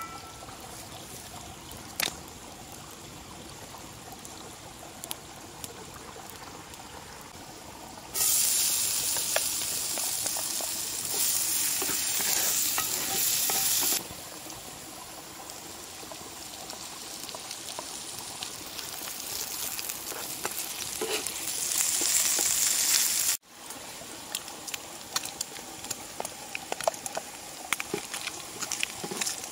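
Food frying in a hot pan, sizzling. A much louder stretch of sizzling starts suddenly about eight seconds in and stops suddenly about six seconds later, and another builds up and cuts off abruptly about two-thirds of the way through. Fainter sizzling and small crackles run in between.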